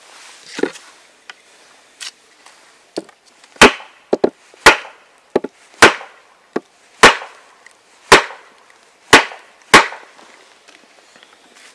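Chisel struck with hard blows, chopping a notch into a dried ash-wood saw arm. About nine sharp wooden knocks come roughly once a second from a few seconds in, with a few lighter taps before them.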